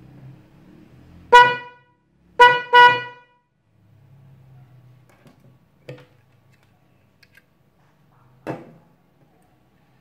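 Bosch H3F electronic snail (fanfare) horn run straight off a 12 V battery, giving three short honks about a second in, each a loud, steady tone with a pitch near 500 Hz. Two much fainter, brief sounds follow later.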